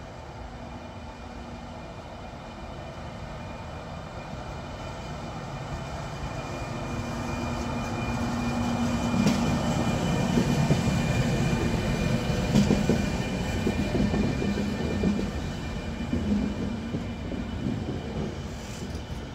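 FS E402 electric locomotive hauling a train of passenger coaches past: the rumble grows steadily as it approaches, is loudest as the locomotive goes by, then carries on as the coaches roll past, with a few sharp knocks from the wheels.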